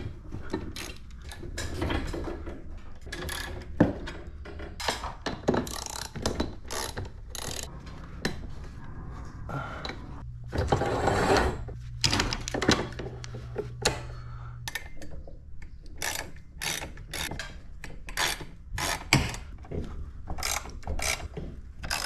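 Irregular metallic clicks, knocks and clanks of tools and hardware on a garage door torsion spring assembly being worked on overhead. A low steady hum joins in for about four seconds near the middle.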